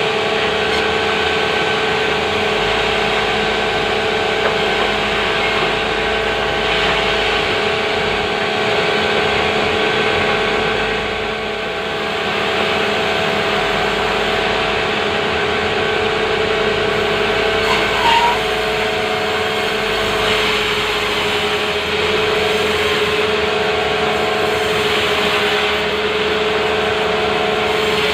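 Sawmill machinery running: a steady, even machine drone holding one pitch, dipping slightly about two-thirds through.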